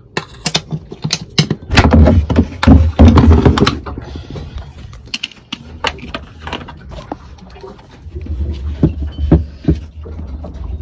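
Clicks and knocks of a stainless flush latch being pulled and a wooden floorboard hatch being lifted to open a sailboat's bilge. The knocking is loudest and densest about two to three and a half seconds in, with more knocks near the end.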